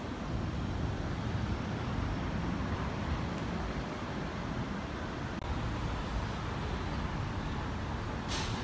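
Steady city street traffic noise, a low rumble of vehicles, with a brief hiss near the end.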